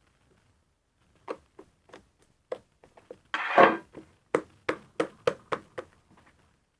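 Fluffy slime made with dish detergent being squished and pressed by hand, giving a string of short wet clicks and pops. About three and a half seconds in comes one longer, louder squelch, followed by a quick run of pops.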